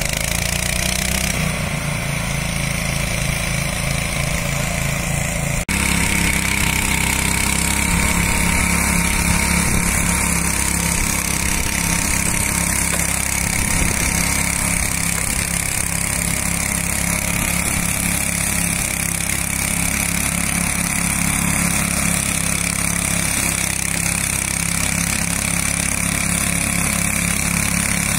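Small petrol engine of a radio-controlled tracked mower running steadily under load, struggling on a very steep slope as it cuts long grass. The sound breaks off briefly about five and a half seconds in and carries on the same.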